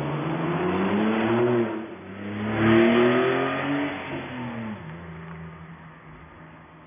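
2018 Porsche 911 Carrera T's twin-turbo flat-six accelerating past, its note rising, dipping briefly about two seconds in, then climbing again. It then falls in pitch and fades as the car drives away.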